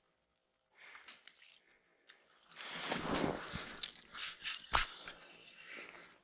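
Close crunching and rustling of winter clothing and packed snow as an ice angler moves over the hole, with a sharp knock about three-quarters of the way through.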